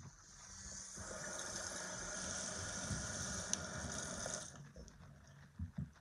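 Bathroom tap running into the sink, a steady rush that swells over the first second and cuts off about four and a half seconds in; two soft knocks follow near the end.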